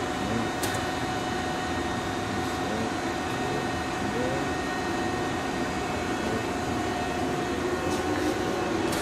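Steady electric machinery hum with a few steady whining tones from a CNC Swiss-type lathe and its bar feeder running a cycle. A faint click comes just under a second in and another near the end.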